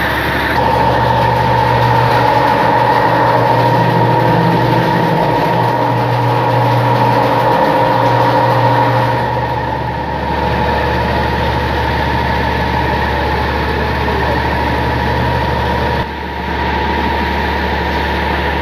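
Tractor engine running steadily, driving the water tanker's centrifugal pump as water is sprayed out through a hose. The engine note shifts about halfway through and dips briefly near the end.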